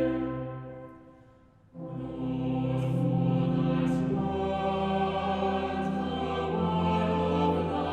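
Choral music with long held chords. The sound fades away over the first two seconds, and a new phrase begins abruptly just under two seconds in.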